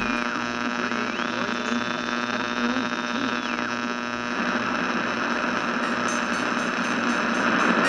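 Electronic drone between songs: a steady buzzing hum with a tone that slides up, holds, and slides back down, then a hiss that swells from about halfway through.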